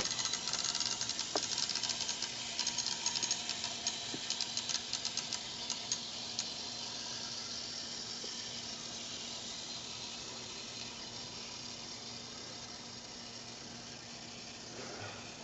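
Brass clock movement on wheels running along a model railway track: a fast, rattling ticking and whirr of its clockwork for the first six seconds or so, settling into a steadier whir that slowly gets quieter.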